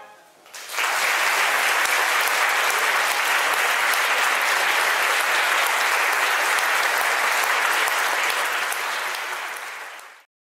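Audience applauding, a dense steady clapping that starts just under a second in and fades away near the end.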